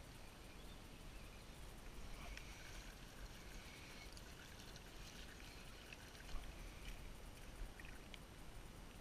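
Faint water lapping and trickling around a kayak hull on calm water, with two light knocks in the second half.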